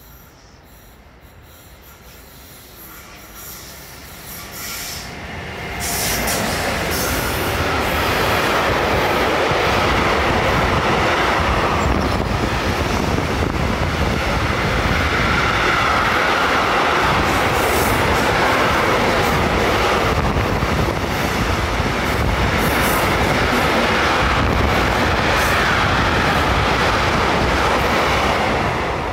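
Intermodal freight train, lorry trailers and tank containers on flat wagons, approaching and passing close by at speed: a rumble that grows over the first six seconds, then a steady loud rolling noise of wagon wheels on the rails with occasional sharp clicks.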